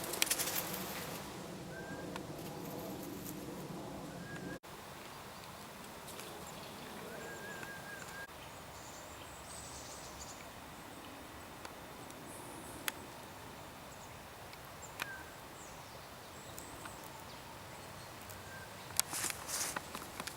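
Quiet outdoor ambience with faint short chirps now and then and a few sharp clicks. There is a brief flurry of rustling near the end.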